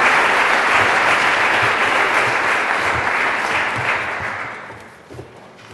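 Audience applauding, the applause dying away about four to five seconds in.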